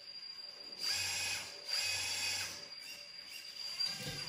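Hydraulic pump of an RC Liebherr 926 excavator speeding up in two bursts of about a second each as the arm is worked to pick up a bucket, over a steady high whine; a short knock near the end.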